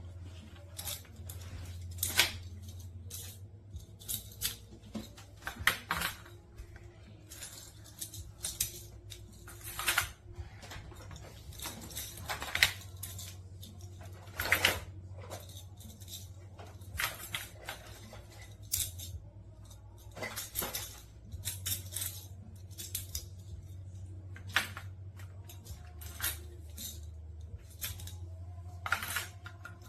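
Small hard plastic magnetic building blocks clicking and clattering as they are handled, in irregular sharp knocks a second or two apart, over a steady low hum.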